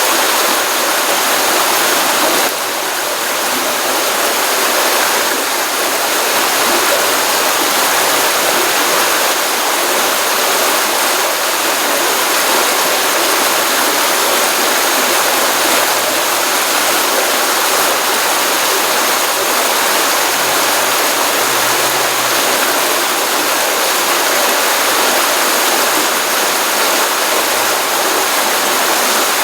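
Stream water running steadily after a rainstorm: a continuous, even wash of flowing water, with a slight drop in level about two and a half seconds in.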